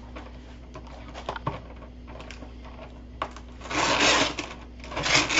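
Clear plastic clamshell strawberry container being opened and handled: a few small clicks, then two louder bursts of crackling plastic, about four seconds in and again at the very end.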